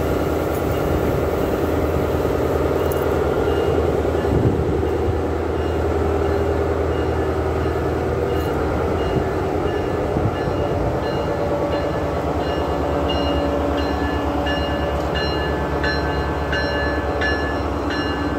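Amtrak Siemens Charger diesel locomotive running steadily as the train pulls away along the platform. In the second half, short high pings repeat about once a second.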